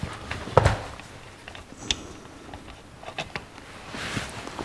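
Hand tools and metal carburetor parts being handled on a workbench. There is a dull knock about half a second in, then a sharp click and a few lighter metallic taps.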